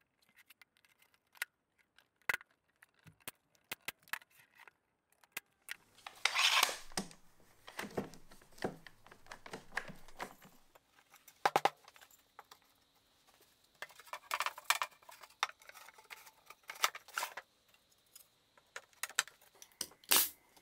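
Scattered light clicks, taps and knocks of wooden drawer parts being handled and fitted together during a glue-up, with two brief scraping sounds about six and fourteen seconds in.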